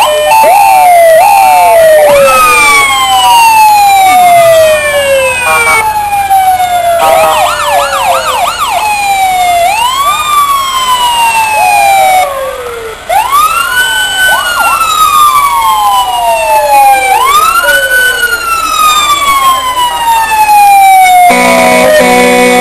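Fire truck sirens wailing as the trucks pass, several overlapping, each rising quickly and falling slowly. A fast yelp comes in about a third of the way through, and a steady horn blast sounds near the end.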